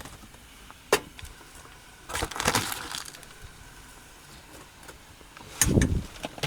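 Cooking gear being handled on a camp stove setup: a sharp click about a second in, a short rattling scrape around two and a half seconds, and a louder knock near the end.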